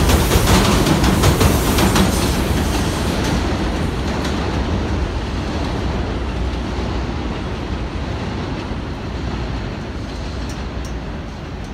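R142 subway train running away along an elevated steel structure. Its wheels clack sharply over the rail joints in the first few seconds, then the rumble fades steadily as it recedes.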